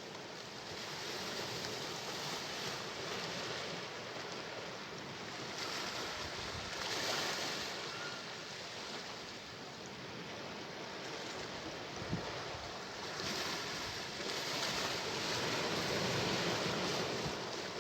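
Sea waves washing onto the shore, a continuous surf that swells twice as waves break and then ebbs. One short click sounds about two-thirds of the way through.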